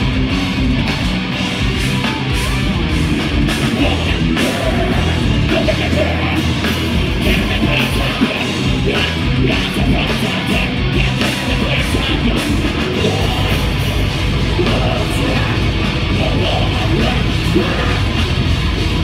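Live heavy metal band playing loud and dense: distorted guitars, bass and drums, with shouted vocals.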